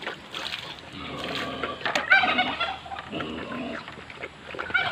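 Pig eating azolla from a metal bowl of water, with wet chomping and slurping, while poultry call in the background, loudest about two seconds in and again near the end.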